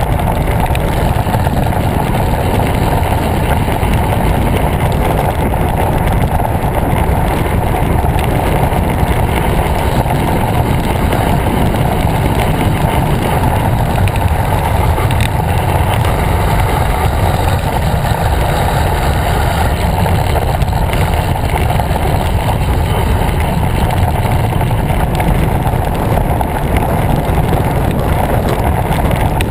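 Steady rush of wind buffeting the microphone of a camera mounted on a moving bicycle, with the bike's tyres rolling on asphalt.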